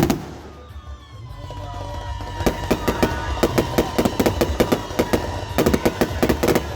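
Fireworks: one loud bang at the start, then, after a short lull, a rapid run of crackling pops that goes on almost to the end, with a steady high tone sounding under them.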